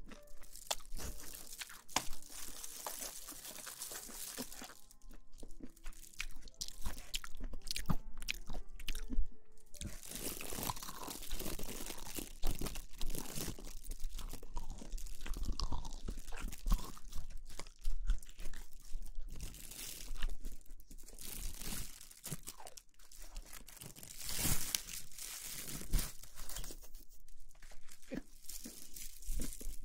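Close-miked crunching and crackling, dense and irregular, made as an ASMR trigger.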